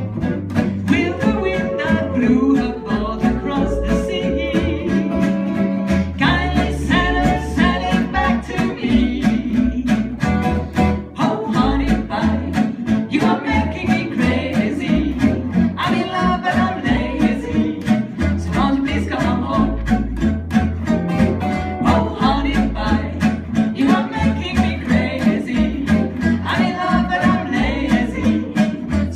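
Acoustic string band playing live: a fiddle carrying the melody over strummed acoustic guitars and a plucked upright bass, with a steady beat.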